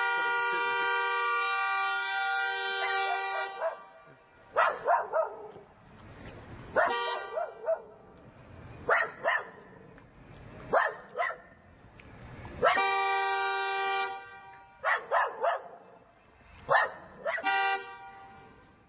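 Car horn blaring in long steady blasts and short toots, sounded by a dog pawing at the steering wheel from the driver's seat, with the dog's sharp barks in between. The horn is held for several seconds at the start, and again for about a second and a half midway.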